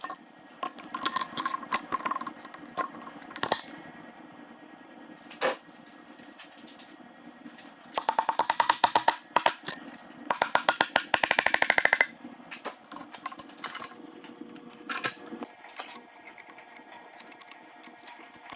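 A ratchet wrench clicking in two quick runs of rapid, even clicks, amid scattered clinks and knocks of tools on metal, as bolts are tightened on the engine.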